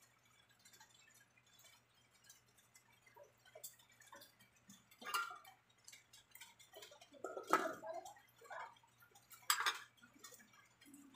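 Faint ticking and popping from a pot of shrimp and bok choy in coconut milk simmering on the stove. A few louder metal clinks come about halfway through and near the end as the stainless steel lid is handled and set on the pot. A faint steady hum runs underneath.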